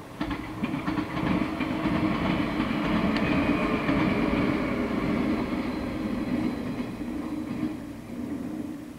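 Yellow JR West 115 series electric train passing close by, its wheels clicking over the rail joints with a steady hum underneath. The sound begins suddenly and fades as the last car clears, about eight seconds in.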